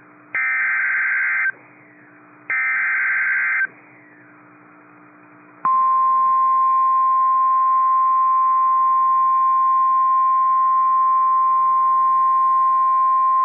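NOAA Weather Radio Emergency Alert System activation for a severe thunderstorm warning. Two SAME header data bursts, each a buzzy squawk about a second long with a second's gap between them, then silence, then about five and a half seconds in the long, steady warning alarm tone begins.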